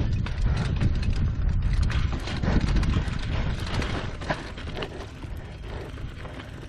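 Bicycle riding: wind buffeting the microphone as a low rumble, with frequent short clattering knocks from the bike. It eases off somewhat over the last couple of seconds.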